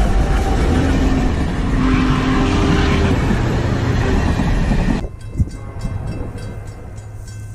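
Union Pacific diesel locomotive and passenger cars passing close at speed, a loud rumble of wheels on rail. About five seconds in the sound cuts off abruptly to a much quieter low hum, with a single thump just after.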